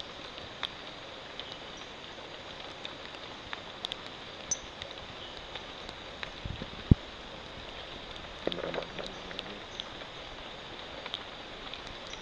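Rain falling steadily on leaves, with many scattered drips and a few short high-pitched notes, the calls of a Teratohyla pulverata glass frog. A sharp thump about seven seconds in is the loudest sound, followed by a brief rustle.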